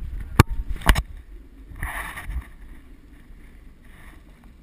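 Two sharp knocks about half a second apart, then a short soft scrape, in a small aluminium boat.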